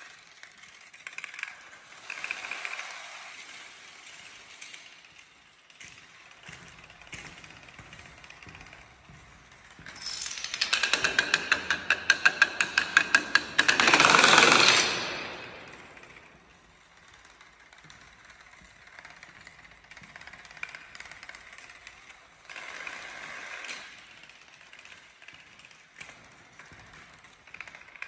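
A long chain of toppling playing cards and dominoes clattering onto a tiled floor in a fast run of clicks. About halfway through it turns loud, with large yellow blocks falling in sharp clacks about four a second, then a brief dense rush of clatter before it drops back to light clicking.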